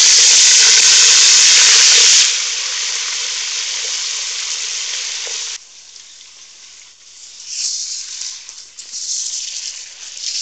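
Raw potato chunks sizzling in hot oil with fried onions, the sizzle loudest for the first two seconds as they hit the oil. About five and a half seconds in it drops suddenly to a softer, uneven frying sound.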